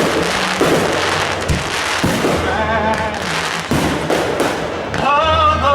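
Fireworks going off in quick succession, a rapid string of bangs and crackles over a constant hiss, with music and singing playing along; a sung phrase comes in near the end.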